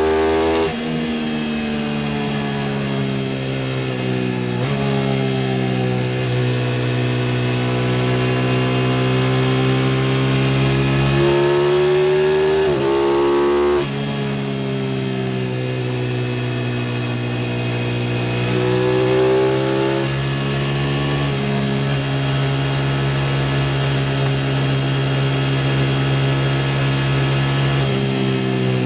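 Aprilia RS660 parallel-twin motorcycle engine under way: the engine note climbs steadily under throttle and drops sharply about halfway through at a gear change, then holds a fairly steady note, with smaller shifts in pitch near the start and past the middle.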